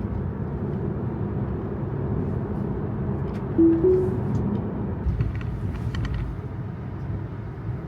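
Steady road and cabin rumble inside a moving Tesla. About three and a half seconds in, a short two-note chime sounds, the second note a little higher than the first.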